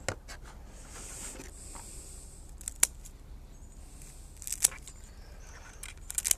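Soft rustling of roots and soil being handled, with four sharp clicks spread about two seconds apart, as the plastic window screen is worked loose from a bonsai root ball.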